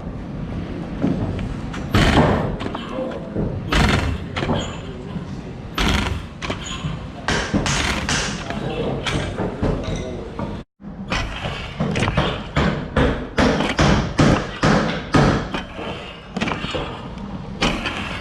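Hand woodworking: repeated heavy wooden thumps, about one every two seconds at first, then faster, about two a second, in the second half.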